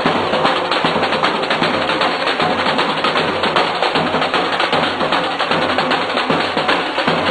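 Live street percussion band playing a fast, dense drum rhythm with many quick sharp strikes, loud and unbroken.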